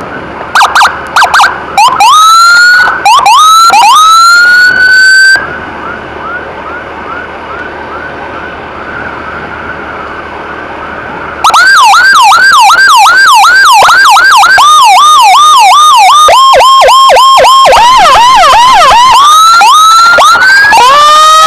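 Electronic emergency siren close by, switched between patterns: a few short chirps, then several rising whoops. After that a quieter stretch follows, with a fainter siren repeating fast. About halfway through a loud rapid yelp starts, turning choppier and then back into rising whoops near the end.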